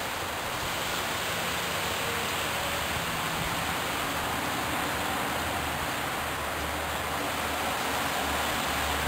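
Steady rushing hiss of running water, with no breaks or changes.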